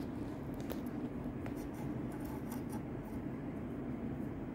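Light rubbing, scraping and small clicks as a clear plastic ruler and a strand of braided fishing line are handled on a tabletop, over a steady low hum.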